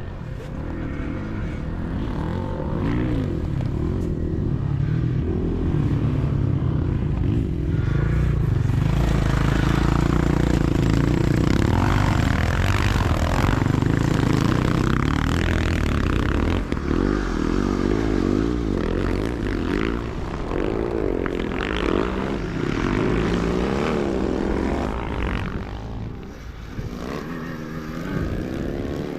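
Sidecar motocross motorcycles racing past, several engines revving up and down as they accelerate and shift. The sound swells to a peak about halfway through and fades toward the end.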